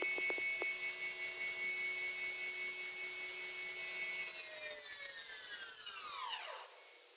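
CNC milling machine spindle running at speed with a high whine and a few sharp clicks in the first second, then winding down about four seconds in, its pitch falling steadily as it stops.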